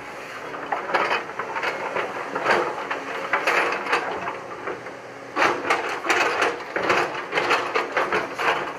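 JCB tracked excavator working rocky ground: its engine hums steadily under repeated irregular clattering and scraping of rock and gravel, in two bouts, about a second in and again after about five seconds.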